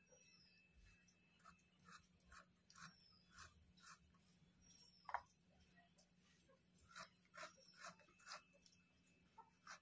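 Faint soft clicks, about two a second in short runs, as wood apple pulp is cut into small pieces on a boti blade, with one slightly louder click about halfway. A small bird gives a short, high falling chirp every few seconds.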